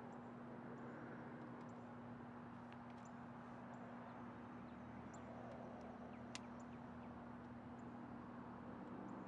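Faint, steady drone of a distant diesel freight locomotive approaching, with a few short high chirps and one sharp tick about six seconds in.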